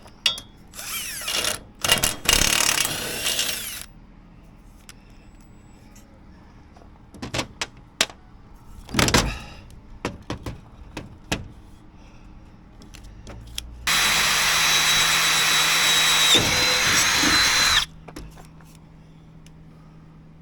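Power drill boring through metal in two runs: a burst of about three seconds a second in, and a steady run of about four seconds with a constant high whine starting about fourteen seconds in. Scattered clanks and knocks of tools and metal fall between the runs.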